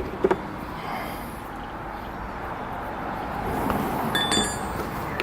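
Background traffic noise swelling and easing off as a vehicle passes. There are a few light clicks near the start and a brief high metallic ring about four seconds in.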